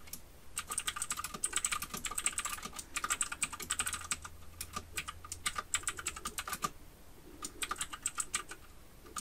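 Typing on a computer keyboard: a fast run of key clicks for several seconds, a short pause, then a shorter run of keystrokes.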